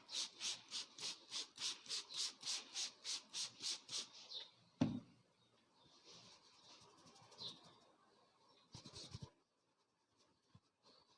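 Barber's hands working over a head in fast rhythmic rubbing strokes, about five a second, for about four seconds. A single sharp knock follows about five seconds in, and a short quick flurry of strokes comes near the end.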